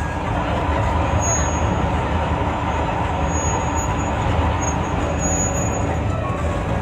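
Intercity bus under way: steady engine and road noise with a strong low rumble, no horn sounding.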